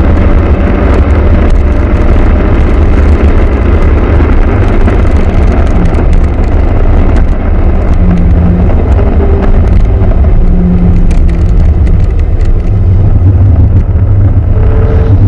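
Renault Clio RS Gordini driven hard on a race track: engine and road noise loud and continuous, the engine note shifting in pitch as it is worked through the gears.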